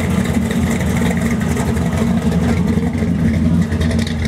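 Engines of hot rods and muscle cars idling and rumbling as they roll past slowly in a line, a steady deep exhaust note.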